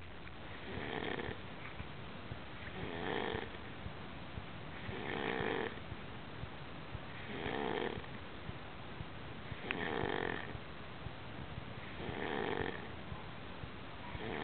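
Snoring in a slow, even rhythm: six breathy snores, one about every two seconds.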